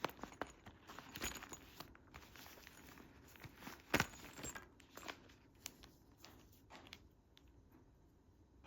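Handling noise from unpacking small items: irregular rustles, crinkles and small clicks, with one sharper click about four seconds in, quieting toward the end.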